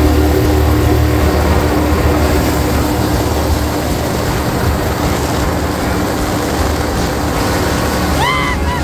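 A helicopter flying low past, a steady deep drone of rotor and engine that eases off after the first couple of seconds. Near the end comes a short call that sweeps up and down in pitch.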